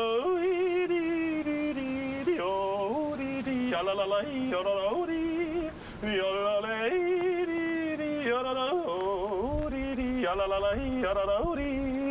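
A man's tenor voice yodeling unaccompanied, leaping abruptly between low and high notes, with vibrato on the held notes.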